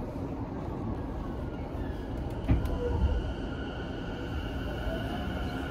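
Steady low rumble inside a train carriage, with two short knocks about halfway through.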